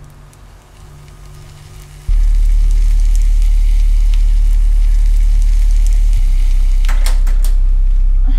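Food sizzling in a frying pan on the stove, with faint crackles. About two seconds in, a loud, deep, steady low drone cuts in suddenly and dominates, shifting slightly around six seconds in; a few sharp clicks come near the end.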